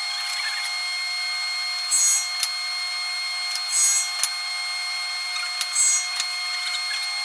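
Table saw running with a steady whine while a small wood block is passed over the spinning blade about every two seconds, each pass a short hissing cut as the blade shaves the wood.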